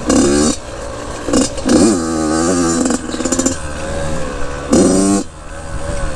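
Dirt bike engine on the move, revving hard in three short bursts of throttle, near the start, about two seconds in and about five seconds in, dropping back to a lower running note between them.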